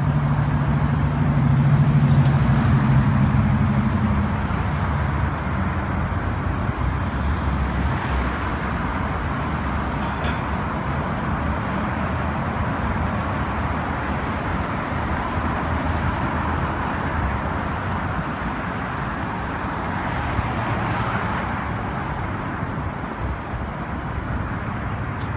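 Steady outdoor road-vehicle noise, with a low engine hum loudest in the first few seconds.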